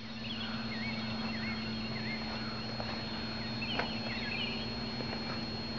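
Outdoor background: a steady low hum and a thin high steady tone, with short chirps repeating throughout and a few faint clicks.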